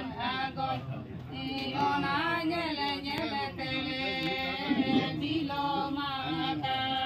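Music with singing: a sung melody that bends and glides over steady held notes.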